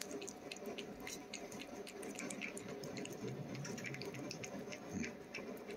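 A cat licking and eating soft treat paste from a hand: a run of small, irregular wet clicks.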